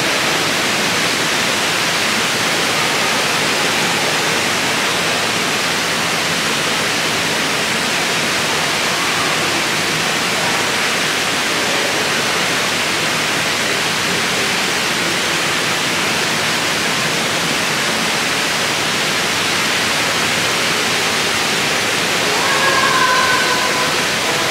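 Steady loud rush of falling water, with faint voices behind it.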